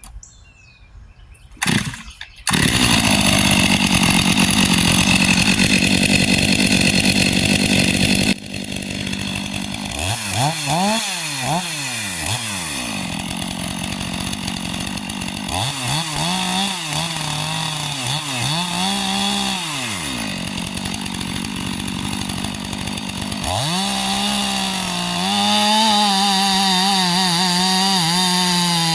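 Stihl MS 500i fuel-injected two-stroke chainsaw with a freshly square-ground chain. It starts, runs loud and steady for several seconds as it cuts, then is revved up and down in bursts. Near the end it runs steadily at high speed again.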